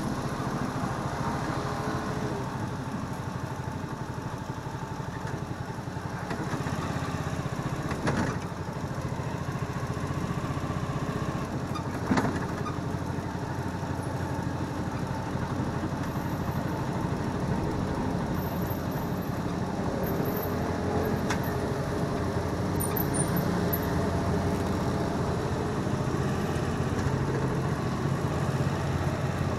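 A motor vehicle's engine running steadily throughout, with two brief knocks partway through.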